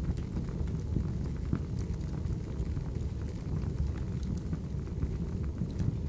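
Fireplace fire burning, with a steady low rumble of flame and frequent small crackles and pops.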